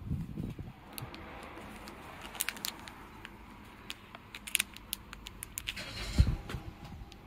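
Clear plastic snack wrapper crinkling and crackling as it is handled and turned over in the hand, with a few sharp crackles in the middle. Low handling thumps come at the start and about six seconds in.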